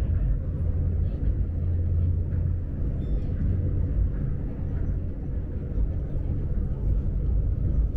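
Tokyo Monorail train, a rubber-tyred straddle-beam monorail, heard from inside the car while running at speed: a steady low rumble with a faint steady hum above it.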